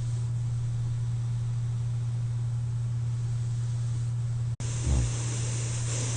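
Steady low hum and air hiss of a CPAP machine running, with a sleeper's brief low snore about five seconds in, just after the sound cuts out for an instant.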